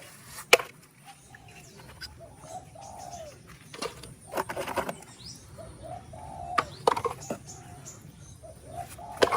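Doves cooing: short, low, soft coos repeated again and again. A few sharp clicks and knocks come in between.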